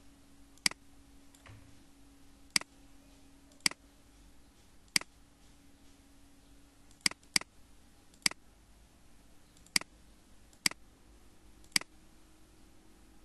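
Computer mouse clicking: about ten sharp single clicks a second or so apart, with a quick double click about seven seconds in.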